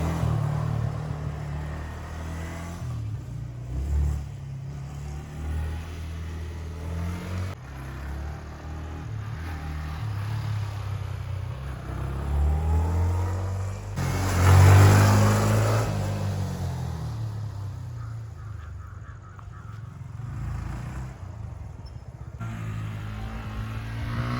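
A motor vehicle engine running on a race track, revving up and down as it accelerates and slows, with one loud close pass about fifteen seconds in.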